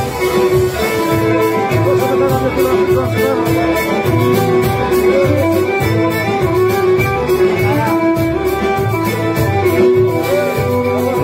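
Live Greek lyra music: a bowed lyra playing a wavering melody over a steady low beat.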